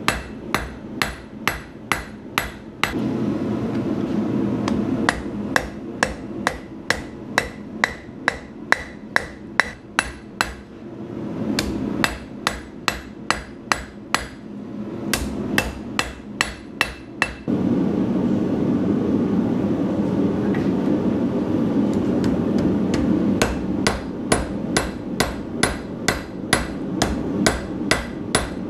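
Hand hammer striking red-hot steel on an anvil, drawing out the tip of a scribe: steady sharp blows about two to three a second, with a few brief pauses.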